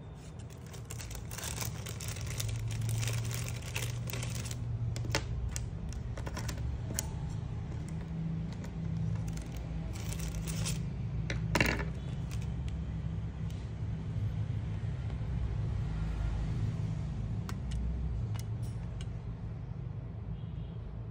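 Small plastic parts and a USB charging cable being handled and set down on a table: light clicks and rattles, busiest at the start, with one sharper click a little past the middle, over a steady low rumble.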